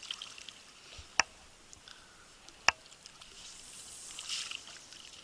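Two sharp clicks about a second and a half apart, with small ticks and a soft splash of water near the end.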